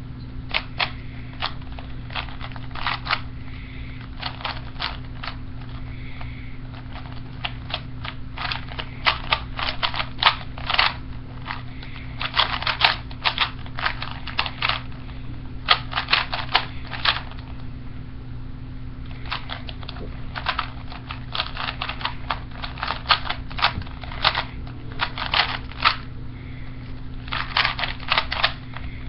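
A 3x3 Rubik's cube being turned fast in a timed speedsolve: rapid plastic clicking in quick runs of turns with short pauses between them, over a steady low hum.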